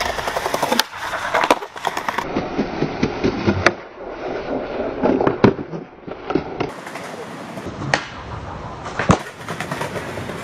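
Skateboard on concrete: wheels rolling, broken by several sharp clacks and cracks of the board striking the ground.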